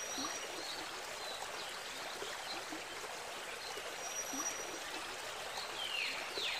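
Steady rush of running water like a stream, with birds chirping faintly over it and a few sharper falling bird calls near the end.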